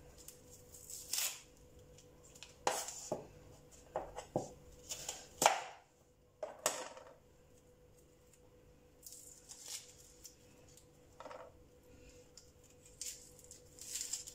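A red onion being peeled: a knife scraping and fingers tearing off its dry, papery outer skin. The scrapes and crackles come in short, irregular strokes, the loudest about halfway through.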